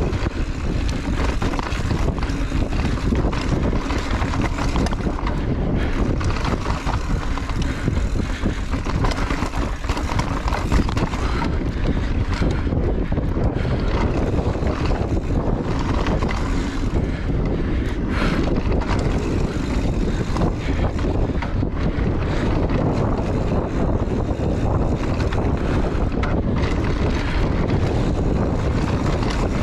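Wind buffeting the camera's microphone as a mountain bike rides fast down dry dirt singletrack, with a steady low rumble of tyres on dirt and many short rattles and knocks as the bike goes over bumps.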